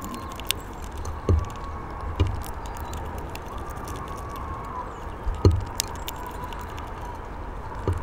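Small finch feeding on a wooden bird-feeder tray: scattered sharp clicks of pecking and seed-cracking, with a few dull knocks on the wood, the loudest about five seconds in. A faint steady drone wavers slightly in pitch underneath.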